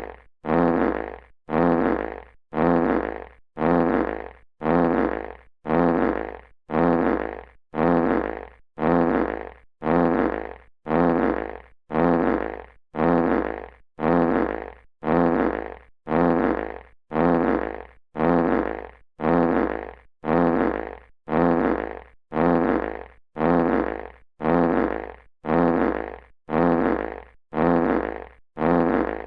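A classic fart sound effect looped over and over: the same buzzy fart about once a second, each one starting loud and fading away, with a brief gap before the next.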